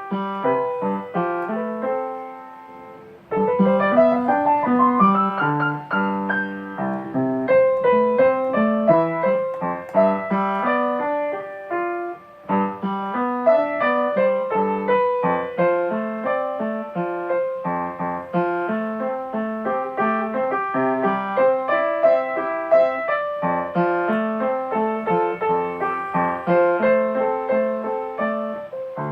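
Solo piano music, many notes at a time; about three seconds in, a held chord dies away and a fast rising run of notes begins.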